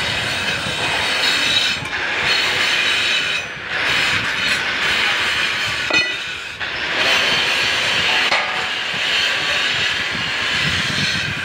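Electric arc welding on a steel channel frame: a steady hiss, broken off briefly twice, about a third of the way in and a little past halfway.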